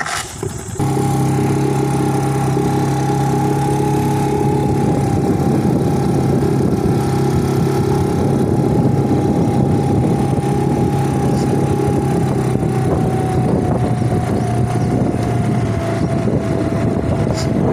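A longboat's outboard motor comes up suddenly to a steady running drone about a second in, with a thin whine above it that sinks a little lower near the end.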